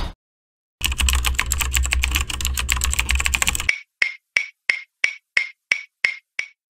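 Logo sound effect: a quick, dense run of clicks, like fast typing, over a low hum for about three seconds, then about nine evenly spaced sharp ticks, roughly three a second.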